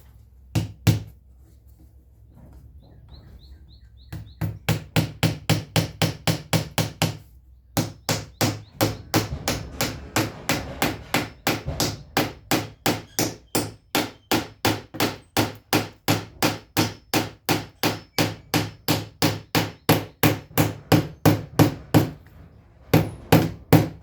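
Hammer tapping nails in at an angle into a wooden door: long runs of quick, even strikes, about three a second, broken by a few short pauses.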